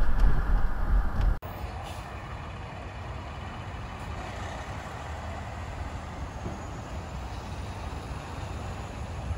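A loud low road-and-wind rumble cuts off suddenly about a second and a half in. It gives way to the steady running of a Kenworth semi truck's diesel engine as it hauls a lowboy trailer loaded with a Tadano rough-terrain crane.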